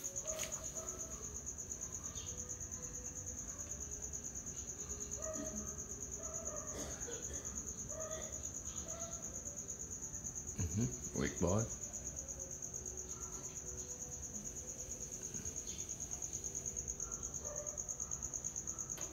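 Steady high-pitched chirring of insects, with a man's voice speaking two short low words about eleven seconds in.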